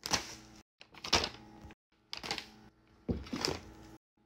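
Bags and boxes of baking ingredients handled and set down on a marble countertop: several short knocks with rustling, each cut off abruptly by a moment of dead silence.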